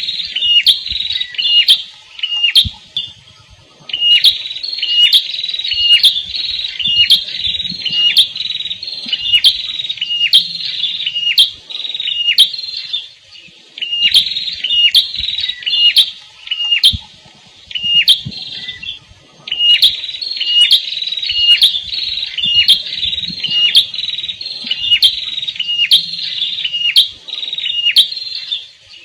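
Prenjak kepala merah, a small Indonesian warbler-type songbird, calling loudly in rapid runs of sharp, repeated chip notes. The runs last a few seconds each, broken by short pauses.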